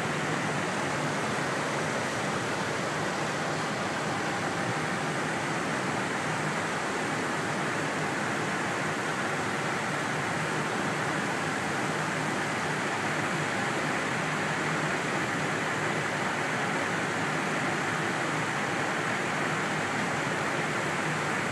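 Steady rushing noise inside an Airbus A321 cockpit in descent: airflow around the nose and air-conditioning hiss, unchanging, with no distinct clicks or crackles.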